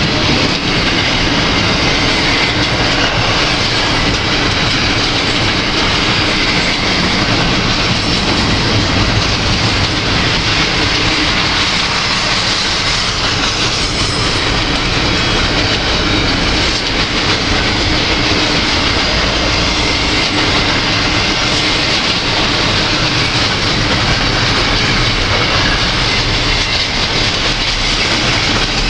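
Double-stack intermodal container train rolling past, a steady, loud rumble of the well cars' wheels on the rails.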